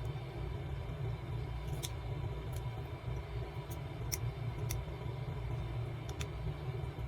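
Faint light clicks of small parts and tools being handled during phone disassembly, about seven scattered ticks, over a steady low background rumble.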